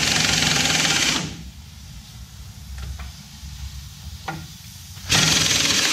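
Pneumatic impact wrench hammering on the rear wheel's hub bolts to loosen them, in two bursts: one ending about a second in and another starting about five seconds in, with a few light knocks between.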